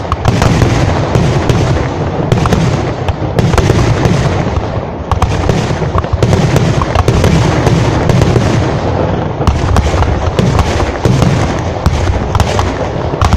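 Ground-level fireworks going off in a dense, unbroken barrage of bangs and crackles over a heavy low rumble.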